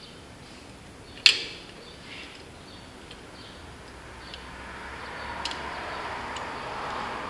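Steel hand tool clicking and scraping against a snap ring on a hydraulic cylinder pin, as it is pried at; one sharp metallic click about a second in, then a few lighter ticks. A broad rising noise builds from about four seconds in.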